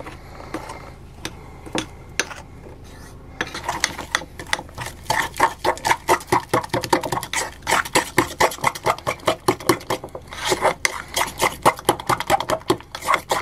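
Metal fork beating butter into icing sugar in a ceramic bowl to make buttercream frosting, clinking and scraping against the bowl. It starts with a few light scrapes, then about three seconds in turns into fast, continuous beating strokes, pausing briefly near the end.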